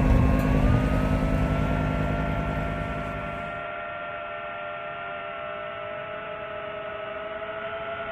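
FPV drone's motors and propellers whining at a steady pitch, rising a little about a second in and then holding. A low rumble underneath fades out about three and a half seconds in.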